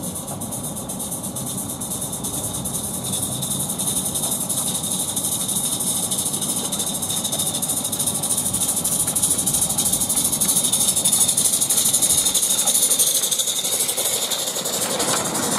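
Coal-fired Roundhouse Billy garden-railway live-steam locomotive running, its exhaust giving a steady hiss that grows louder as it approaches and passes close by near the end.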